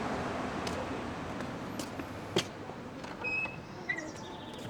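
Steady background noise with a sharp knock about two and a half seconds in and a few short high chirps near the end.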